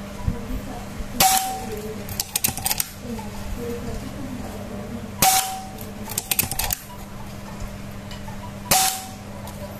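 Suppressed air rifle fired three times, about three and a half seconds apart, each shot with a short metallic ring, and a quick run of mechanical clicks after the first two shots as the action is cycled for the next pellet.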